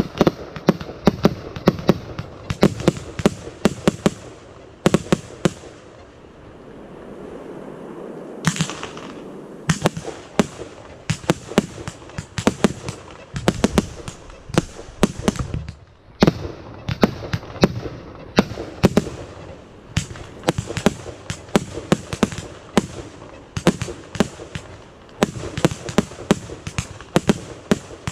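Fireworks going off in rapid volleys of sharp bangs and crackles, many a second. The firing thins out briefly about six seconds in, then picks up again densely.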